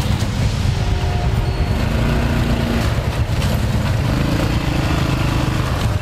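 ATV engine working under load as the quad climbs out of a muddy creek bed and passes close by, its revs rising and falling.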